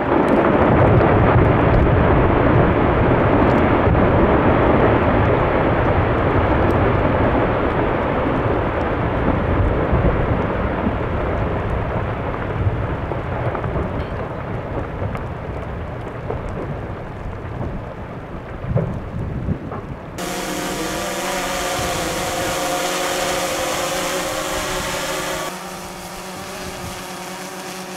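Low, steady rumble from a moving ship, engine and wind noise together. About twenty seconds in it cuts abruptly to a quieter, steadier engine hum with several held tones, which drops again a few seconds later.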